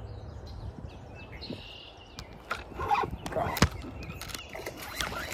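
Faint birds chirping, then from about two seconds in a run of sharp clicks and knocks, loudest about three and a half seconds in: hands grabbing and working a Shimano Sienna 2500HG spinning reel and rod as a fish is hooked.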